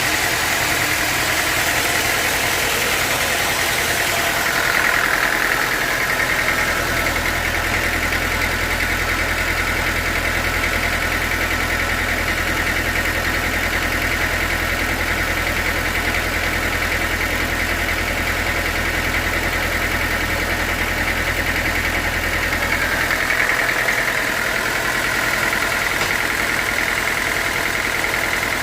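Band sawmill running, a steady machine drone with a high whine throughout. A deeper low hum joins about six seconds in and drops away about twenty-three seconds in.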